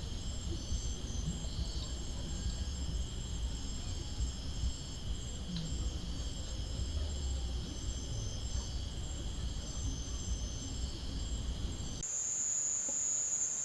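Insect chorus of several steady high-pitched trills over a low rumble. About twelve seconds in, the rumble and most of the trills drop out suddenly, leaving one high steady tone.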